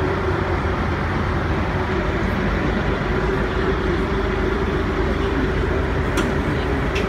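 A yacht's engine running steadily under way, a constant low rumble with a hum, mixed with the rush of wind and water past the hull.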